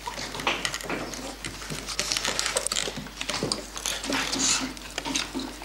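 Several children whittling and scraping wood and branches with carving knives: a busy, irregular run of scrapes and small clicks.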